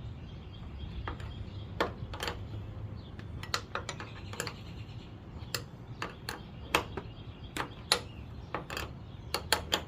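Irregular metallic clinks of a wrench being worked on a 13 mm nut, drawing up a rivet nut (nutsert) in the truck body while a hex key holds the bolt still.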